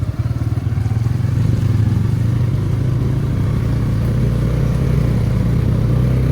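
Motorcycle engine running steadily under load on a rough dirt track, picking up a little about a second and a half in and then holding its pace.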